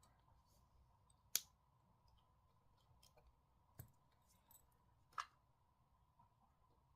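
Three sharp small clicks, about a second and a half apart, and a few fainter ticks against near silence: small tools and parts being handled while a smartphone is screwed back together.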